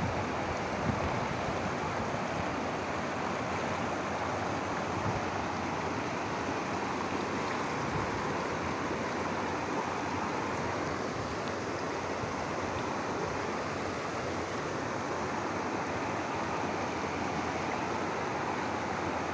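Fast-flowing floodwater rushing steadily, a continuous even roar of water.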